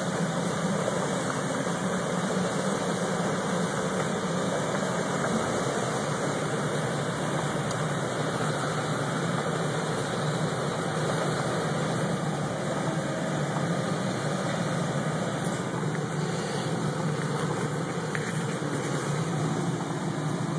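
Vehicle engines running steadily with gravel road noise, heard from inside a slow-moving car's cabin.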